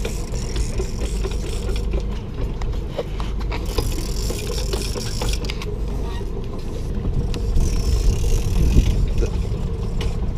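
Big-game conventional fishing reels being cranked under load, clicking repeatedly, over a steady low rumble from the boat.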